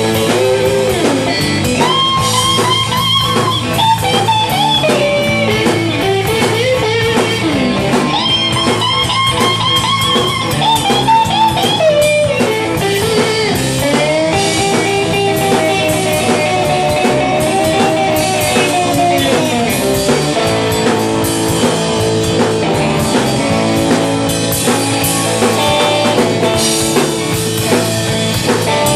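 Live blues band playing, with a lead guitar solo of long, bending, wavering notes over bass and drums.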